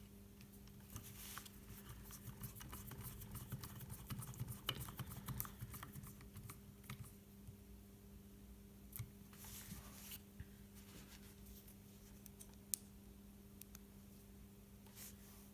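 Small Phillips screwdriver turning tiny screws into a drone's plastic arm hinge: faint clicking and scratching for several seconds, then a short rasp about ten seconds in, over a steady low hum.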